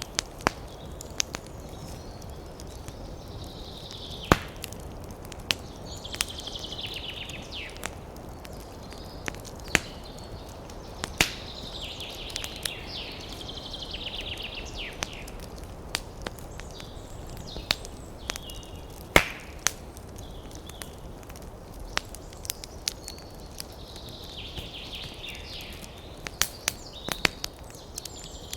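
Wood fire crackling in a fireplace: irregular sharp pops and snaps, with several stretches of high hissing between them.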